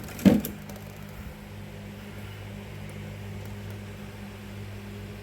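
A single sharp knock about a third of a second in, then a steady low hum.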